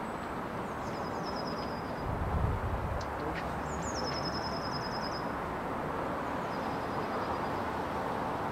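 A small songbird singing short high trilled phrases, the clearest a quick run of repeated notes about four seconds in, over a steady hiss of outdoor background noise. A low rumble swells about two seconds in.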